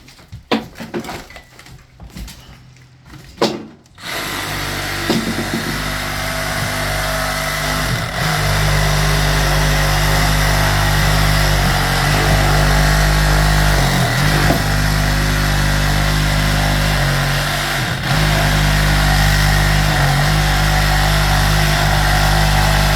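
A few knocks, then a motor starts about four seconds in and runs steadily and loudly, dipping briefly three times.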